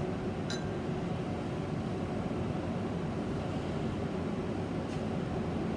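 Steady hiss of laboratory air handling, with one light glassy click about half a second in as a glass test tube is set into a beaker of hot water.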